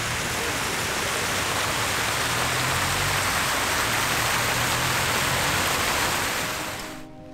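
Fountain water splashing steadily: a dense hiss with a low rumble beneath, cutting off suddenly near the end.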